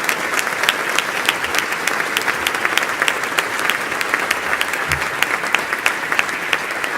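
Audience applauding steadily, a roomful of people clapping.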